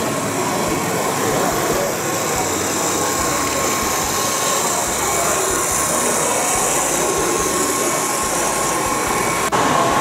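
On30-gauge model train running on a layout: a steady mechanical running noise, with a short break about nine and a half seconds in.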